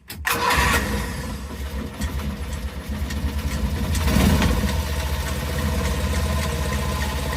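Mazda Porter Cab PC56T kei truck engine catching suddenly and then idling steadily, with a brief swell about four seconds in. It carries an abnormal noise that the owner suspects comes from the tensioner bearing.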